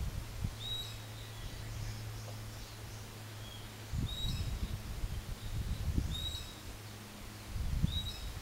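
Wind gusting against the microphone in low rumbles, with a bird repeating a short high chirp about every two seconds. A faint steady low hum sits underneath.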